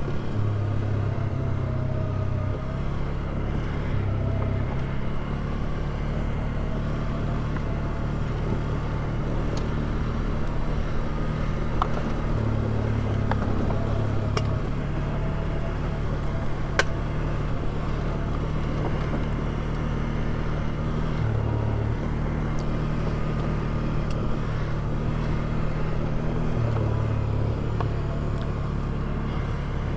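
Polaris ATV engine running at low, slightly varying revs in four-wheel-drive low as the quad creeps down a steep hill on active descent control. A few sharp ticks sound around the middle.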